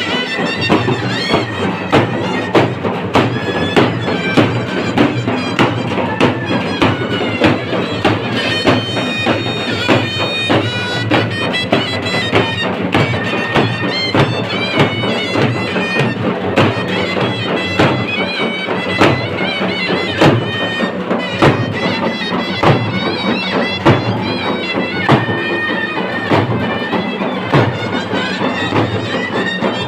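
Traditional Maharashtrian vajantri band playing loudly: a wavering reed wind-instrument melody over a steady, even beat of dhol and tasha drums.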